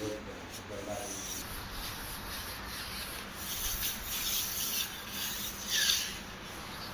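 Hand float rubbing and scraping over fresh cement plaster in irregular strokes, the loudest near the end.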